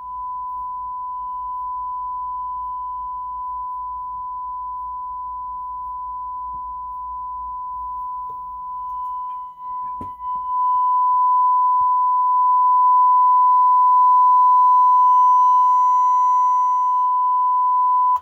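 A steady 1 kHz sine test tone is run through a Marantz 2245 stereo receiver for a bench power test. About ten seconds in it gets louder and picks up faint higher overtones, then it cuts off suddenly.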